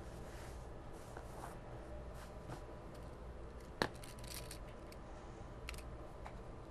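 Hands pinning two layers of upholstery fabric together on a cutting mat: soft fabric rustling and small ticks of pins, with one sharp click about four seconds in and a few quicker ticks just after it. A faint steady hum runs underneath.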